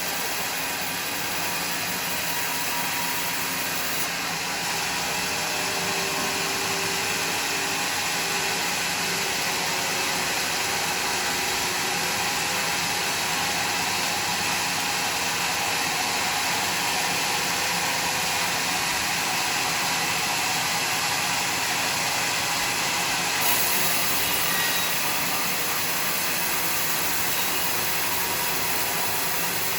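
Sawmill machinery running steadily: a continuous mechanical drone and hiss with a faint whine, unbroken throughout.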